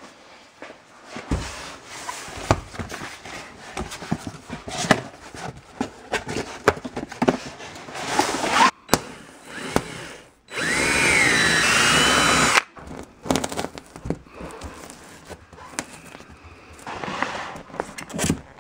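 Workshop handling noises and knocks, then a power drill run for about two seconds into foil-faced insulation board, its motor pitch rising and falling with the trigger. More handling noises follow, with a plastic bag rustling near the end.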